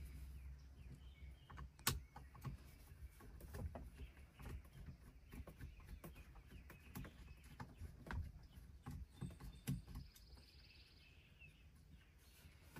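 Faint, irregular small clicks and scrapes of a screwdriver backing a Phillips screw out of a truck's shifter cover, with a sharper click about two seconds in, over a low steady rumble.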